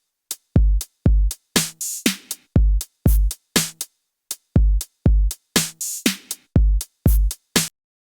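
Drum-machine beat run through the Bit Maestro bit-crusher effect, the hits chopped short with dead silence between them. The beat stops abruptly near the end.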